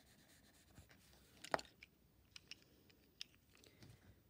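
Derwent Coloursoft coloured pencil shading on paper: faint, soft scratching strokes, with a few light ticks and one sharp click about a second and a half in.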